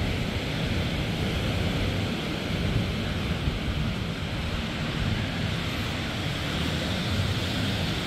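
Storm surf breaking on a pebble beach, a steady rushing wash of waves, with wind buffeting the microphone.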